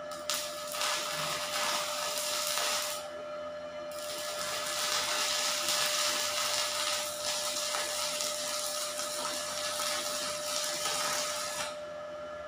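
Stick-welding arc from a 450 W inverter welder burning a 2 mm electrode at 56 A: a dense crackling hiss that runs for about three seconds, breaks off for a second, then burns steadily until it stops sharply near the end. A thin steady whine runs underneath throughout.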